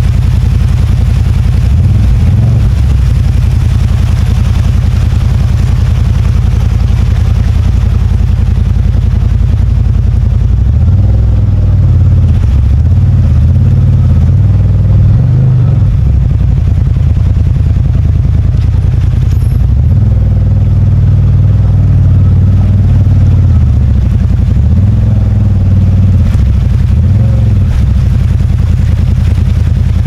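CFMOTO ZFORCE 950 HO Sport side-by-side's V-twin engine running as the throttle opens and closes, its note rising and falling several times.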